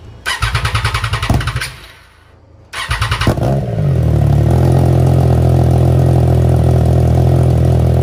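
Harley-Davidson FXDR 114's Milwaukee-Eight 114 V-twin being started through its newly fitted exhaust. A first crank of about a second and a half does not catch. A second crank about three seconds in fires, and the engine settles into a loud, steady idle.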